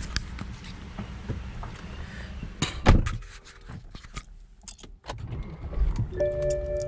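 BMW sedan: the driver's door shuts with a loud thud about three seconds in, muffling the rain outside. About two seconds later the engine starts and runs, and a steady dashboard chime sounds near the end.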